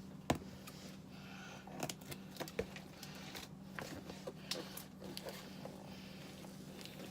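A cardboard box and its packaging being worked open by hand: scattered clicks, crinkles and rustles, with one sharp click just after the start, over a faint steady hum.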